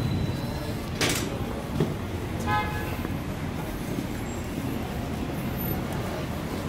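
City street traffic heard from the sidewalk, with a short sharp hiss about a second in and a brief horn beep about two and a half seconds in.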